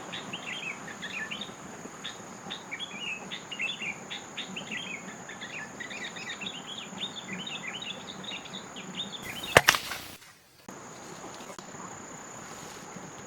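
Small birds chirping in quick, busy twitters over a steady high insect drone. About nine and a half seconds in comes a sharp, loud double crack, after which the chirping stops and only the steady drone remains.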